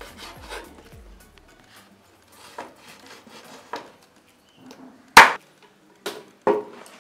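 Kitchen knife knocking on a wooden cutting board as raw beef is cut into small pieces: scattered knocks, the loudest a sharp one about five seconds in, then two more within the next second and a half.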